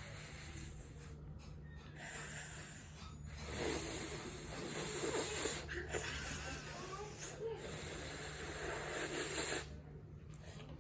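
A child making long, breathy mouth sounds while eating hot Maggi instant noodles: air drawn or blown through the lips, several times over about eight seconds, with short breaks between.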